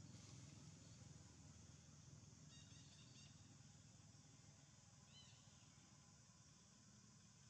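Near silence: faint outdoor background hiss, with a few faint high chirps about three seconds in and one short chirp a little past the middle.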